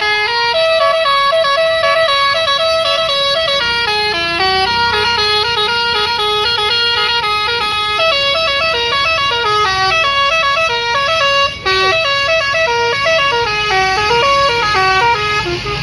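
A bus's basuri multi-tone musical horn playing a melody: a quick run of stepped horn notes, one after another without a break.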